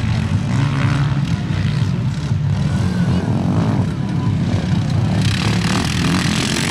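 Engines of small racing vehicles running loud and continuously, their pitch wavering as the throttle changes; a brighter hiss joins about five seconds in.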